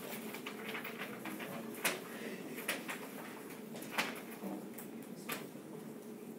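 Stylus tapping and sliding on an iPad screen while handwriting numbers, with about four sharp taps over a low, steady room hum.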